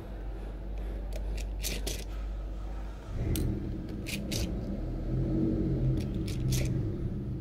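Small sharp clicks and scrapes of tools on a Xiaomi Note 4X smartphone's casing and internal parts as its bottom section is taken apart. A low hum comes in about three seconds in.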